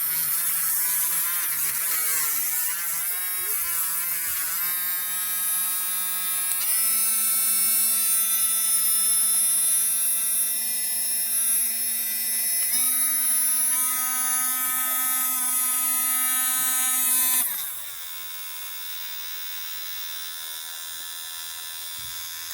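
Motor whine of a HARDELL 3.7V mini cordless rotary tool running. It steps up to a higher speed about six seconds in and again about halfway through, drops sharply to a low, quieter speed near the three-quarter mark, and cuts off at the end.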